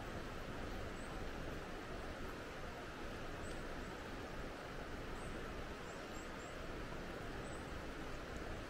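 Steady rushing outdoor ambience with a few faint, short high chirps scattered through it.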